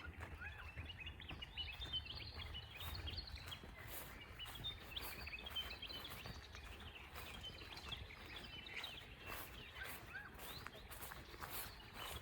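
Many small birds chirping and calling at once, a dense chatter of short high notes with some arched, looping calls, broken by occasional sharp clicks.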